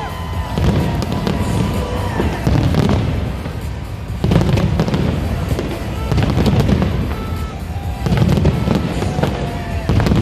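Fireworks display going off in surges of deep booms and dense crackling bursts, one volley every second or two.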